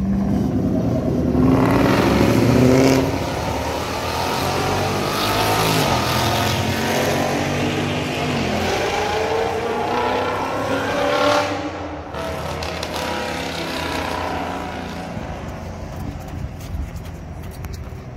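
Ford Mustang's 5.0 Coyote V8 accelerating hard away, its pitch climbing in several runs as it revs up through the gears. It drops off and fades into the distance from about twelve seconds in.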